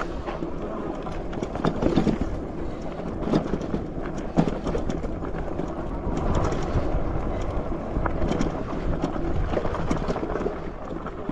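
Trax e-bike riding over a rough dirt trail: wind rushing over the microphone and tyre rumble, broken by frequent short knocks and rattles as the bike jolts over bumps.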